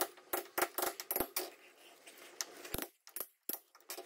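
Hammer striking a steel yarning iron in sharp metallic taps, packing oakum down into the joint between a cast iron toilet flange and the pipe. The strikes come about three a second for the first second and a half, then a few scattered clinks.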